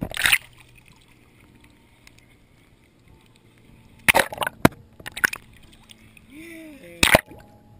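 Water splashing and sloshing in a small inflatable paddling pool, with loud sharp hits at the start, a cluster about four to five seconds in, and one more near the end.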